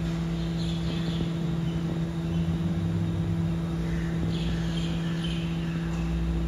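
BYD electric garbage truck reversing slowly, giving a steady electric hum over a low rumble. Birds chirp briefly twice in the background.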